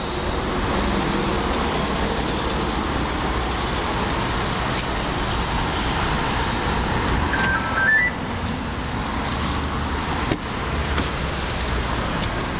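A car running steadily, with a short electronic chirp of a few stepped beeps rising in pitch about seven and a half seconds in, typical of an aftermarket remote-start alarm's confirmation melody. A single sharp click comes near the end.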